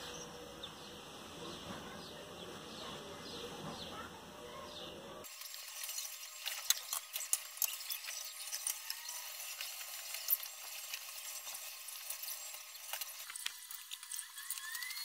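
Faint scattered clicks and light crackling as wooden lure-body discs stacked on a rod are handled and glued, with a glue bottle being squeezed over them. A handful of the clicks stand out, most of them in the middle stretch.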